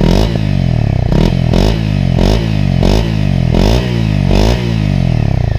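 Honda CRF250L's single-cylinder four-stroke engine with its stock exhaust, revved in a series of quick throttle blips, each rising sharply and dropping back toward idle.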